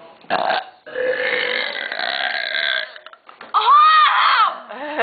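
A girl's long, drawn-out burp of about two seconds, after a short sound near the start. About a second after the burp, a brief high-pitched voice whose pitch rises and falls is the loudest moment.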